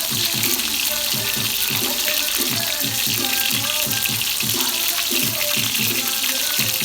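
Water running steadily from a kitchen tap into a sink, with music playing underneath.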